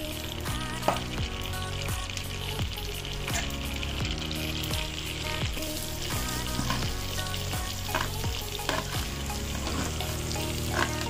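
Butter sizzling and frying in a kadai as chopped onions are tipped in, a steady hiss with a few sharp clicks.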